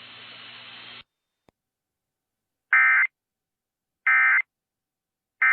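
Emergency Alert System end-of-message: three identical short bursts of SAME digital data tones, evenly spaced about a second and a half apart. They come after about a second of faint radio hiss and hum that cuts off.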